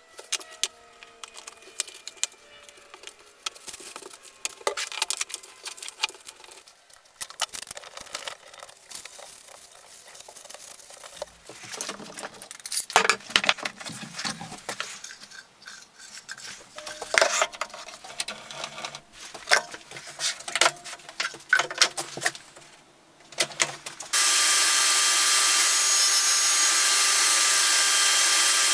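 Small wooden parts are handled and fitted, and a band clamp is drawn tight around a glued-up wooden box, giving scattered clicks, knocks and rubbing. About 24 seconds in, a table saw comes in abruptly at full level and runs steadily.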